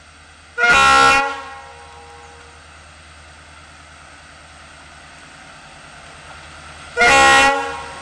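Diesel locomotive's horn sounding two short blasts, each about half a second long, about a second in and again near the end, over the steady rumble of the locomotive's engine as the train draws near.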